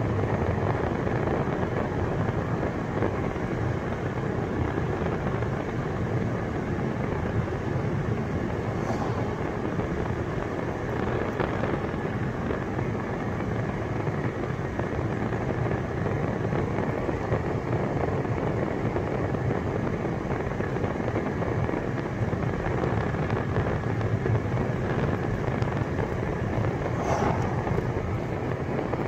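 Steady road noise inside a moving car's cabin: a low tyre and engine rumble that holds even throughout.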